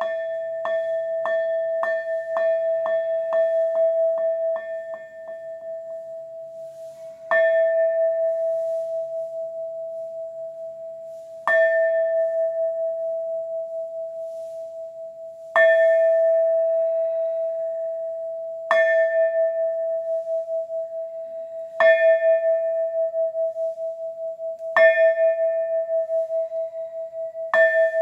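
A Thai Buddhist monastery bell struck over and over, each stroke ringing on at one clear pitch. It opens with a run of quick strokes that come faster and fainter. After a short pause come single strokes a few seconds apart, the gaps slowly shortening.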